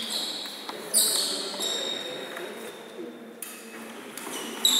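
Badminton rackets striking a shuttlecock in a rally: three sharp pinging hits, about a second in, past three seconds and near the end, each ringing briefly in a large hall.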